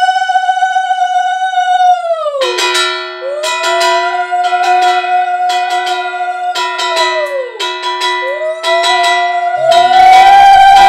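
A conch shell (shankha) blown in three long held notes, each sagging in pitch as the breath runs out, over the repeated ringing of a brass puja hand bell. A steady lower tone sounds between the blasts, and a louder, busier mix of sound joins near the end.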